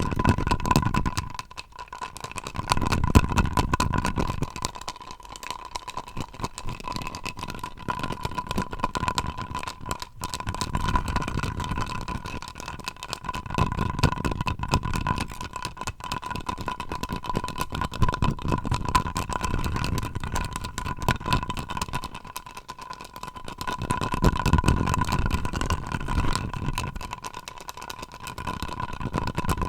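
Rapid close-up tapping and scratching of fingertips or nails on an object, in swells that rise and fall every few seconds, over a steady high tone.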